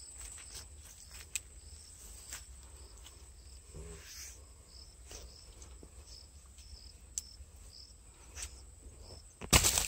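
Insects chirping steadily, with a high buzzing note and a short chirp repeated about twice a second. Small clicks and rustles of dry grass and a cord come from hands handling a caught catfish, and there is a louder rustle near the end.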